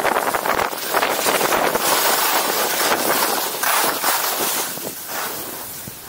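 Skis hissing and scraping over packed snow on a fast downhill run, mixed with wind rushing over the microphone. The rush rises and falls in waves and fades toward the end.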